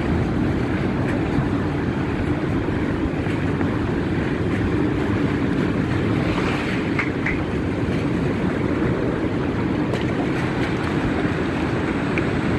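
Steady rush of ocean surf breaking on a reef, mixed with low rumbling wind buffeting the phone's microphone.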